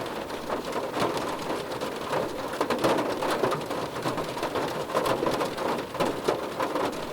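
Rain falling on a car's roof and windows, heard from inside the cabin: a dense, steady patter of individual drop hits.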